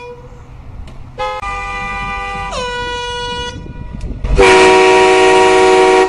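Two air horn blasts. The first comes about a second in as a steady chord that drops in pitch partway and stops after about two seconds. The second, a much louder train horn blast, starts about four and a half seconds in and cuts off suddenly.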